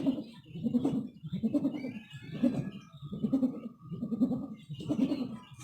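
Kite hummer (sendaren) of the 4-metre 'ngukuk' type humming in the wind: a low, dove-like cooing hum that swells and fades about once a second, over and over.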